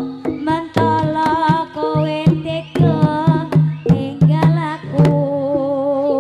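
Live jaranan gamelan music: sharp hand-drum strokes and sustained metal percussion tones under a wavering, vibrato melody line.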